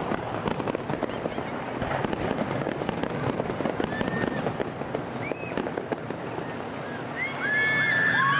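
Fireworks display: a dense, continuous crackle of many rapid small pops from gold crackling shells bursting overhead. Near the end, several high whistling tones come in over the crackle.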